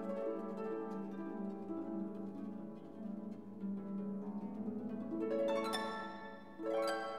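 Gentle instrumental background music: a melody of plucked string notes, harp-like, with several notes struck together near the end.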